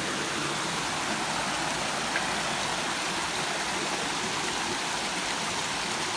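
Shallow rainforest creek running over boulders and small cascades, a steady rushing of water.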